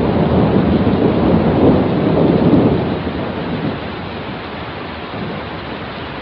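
Thunder rumbling over steady heavy rain; the rumble fades after about three seconds, leaving the rain's hiss.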